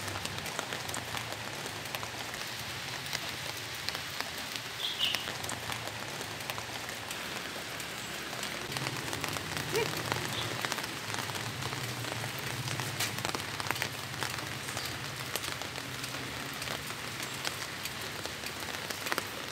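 Steady rain falling, with the ticks of many single drops striking close by.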